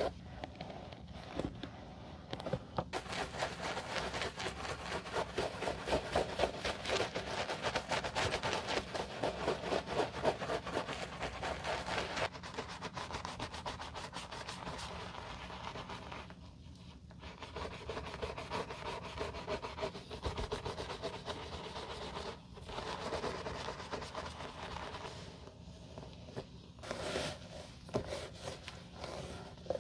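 A bristle brush scrubbing foamy cleaner into leather loafers, and a terry towel rubbing over the leather. The strokes come quick and many to the second, busiest in the first half.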